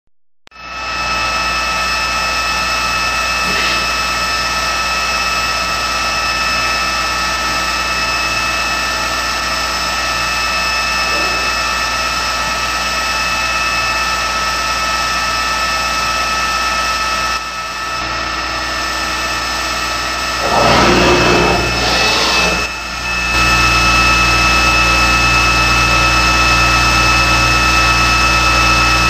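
Robotic fettling machine's abrasive cut-off disc and spindle motor running with a steady high whine over a low hum. Past the middle the sound turns rougher and louder for about two seconds as the disc cuts into the metal castings.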